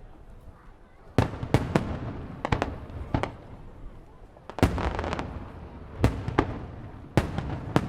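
Fireworks shells bursting overhead in quick succession: about ten sharp booms, some close together in pairs, with crackling between them, starting about a second in.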